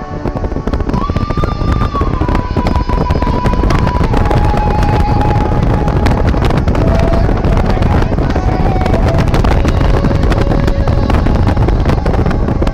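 A string of firecrackers crackling rapidly and loudly, starting at once and cutting off near the end, over music with a long held melody note that steps down in pitch.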